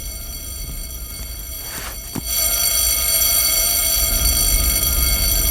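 A steady, high-pitched alarm-like ringing tone with many overtones over a low rumble. After a knock about two seconds in, it gets much louder.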